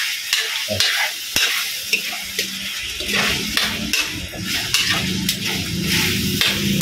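Pork cubes sizzling in hot oil in a steel wok while a metal spatula stirs them, scraping and ticking against the pan: the meat is being lightly browned.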